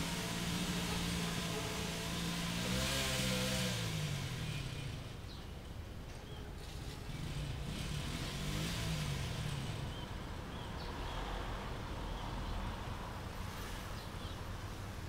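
A passing motor vehicle's engine running and revving, its pitch rising and falling about three seconds in and again about eight seconds in. Faint short bird chirps come through in the second half.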